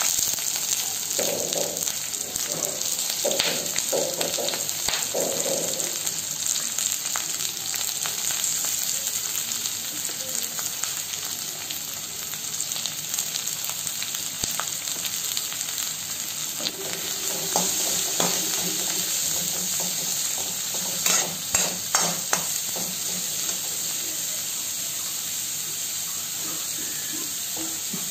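Sliced onions sizzling in hot coconut oil in a pan on low heat, a steady hiss with scattered crackles. There are a few sharper knocks about three-quarters of the way through.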